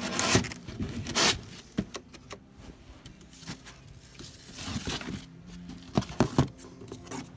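Cardboard fan box being handled: scraping and rustling of cardboard, loudest in the first second or so, with a few light knocks later on.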